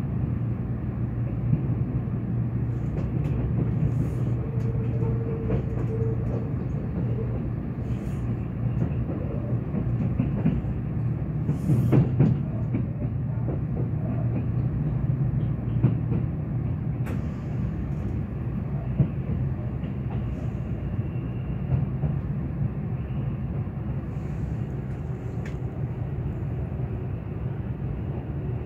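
Running noise inside a Kintetsu 22600 series 'Ace' limited express car: a steady low rumble of wheels on rail, with scattered clicks and knocks from the wheels passing over rail joints. The loudest knocks come about twelve seconds in.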